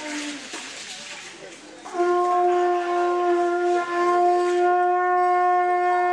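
Conch shell trumpet blown in one long, steady note lasting about five seconds, starting about two seconds in. A shorter blast fades just after the start.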